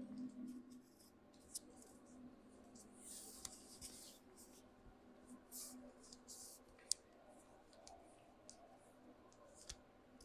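Near silence: room tone with a faint low hum, scattered soft rustles and a few faint clicks.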